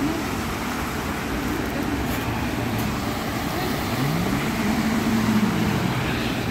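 Cars driving through floodwater from a burst water main, tyres splashing and spraying over a steady rushing hiss. About four seconds in, one car's engine note rises as it accelerates, holds briefly, then falls away.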